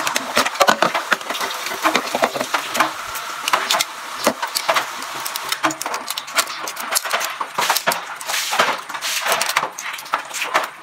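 Hard-boiled egg shell cracking and being peeled off by hand: a dense run of small irregular clicks and crackles.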